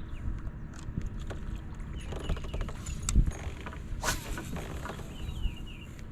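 Scattered clicks, knocks and creaks from fishing gear being handled aboard a kayak, over a low rumble of wind on the microphone.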